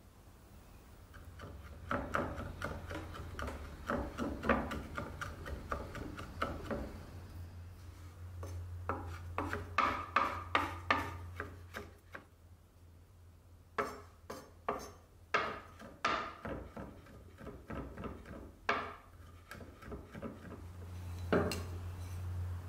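Kitchen knife chopping fresh herbs on a wooden cutting board: runs of quick, rapid strokes, then a few slower, separate cuts, over a low steady hum.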